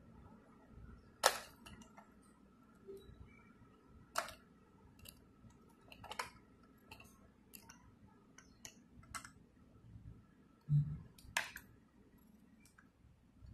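Die-cast front-loader garbage truck model and its toy dumpster clicking and clacking as the lift arms are worked by hand: a few sharp clicks spread several seconds apart, fainter ticks between, and a short low thump near the end.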